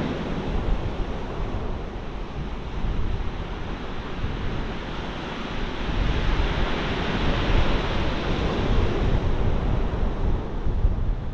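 Sea waves breaking and washing up a shingle beach: a steady rushing surf that rises and eases a little.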